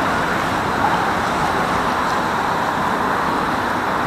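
Steady rushing noise of distant road traffic.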